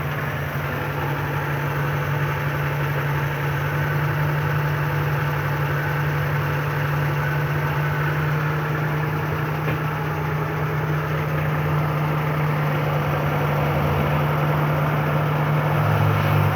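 Freshly overhauled Suzuki F6A three-cylinder engine idling steadily, with a slight rise in level toward the end.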